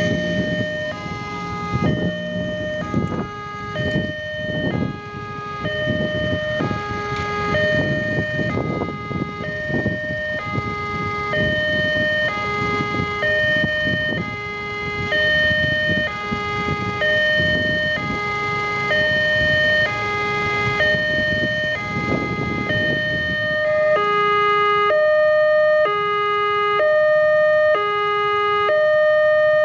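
Railway level-crossing warning alarm sounding: an electronic two-tone alternation, high then low, about one pair every two seconds, while motorcycle and car engines pass at the crossing. The traffic noise dies away and the alarm grows louder and clearer near the end.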